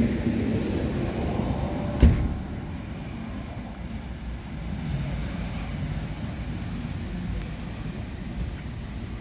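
Vintage electric suburban train pulling away and receding, its running rumble fading over several seconds. A single sharp knock sounds about two seconds in.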